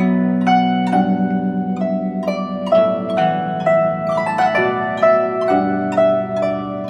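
Instrumental music: a melody of plucked string notes, harp-like, each ringing and fading, over held low notes.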